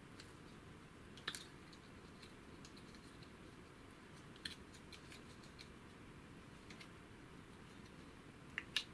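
Faint handling sounds: a few small clicks and ticks as silicone anti-vibration dampers are squeezed and pulled through the holes of FR4 fibreglass mount plates, one about a second in, one near the middle and two close together near the end, over low room hiss.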